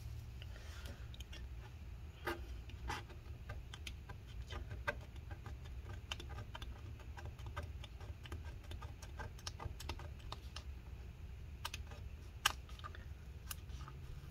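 Plastic razor-blade scraper working old battery adhesive off the aluminum case of a MacBook Pro: an irregular run of light clicks and scratches, with a few sharper ticks.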